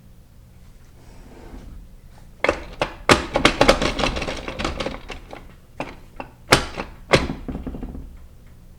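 Metal transmission parts from a 4L60E clattering and knocking as they are worked out of the case and handled: a dense rattle of clanks for a couple of seconds, then two sharp knocks.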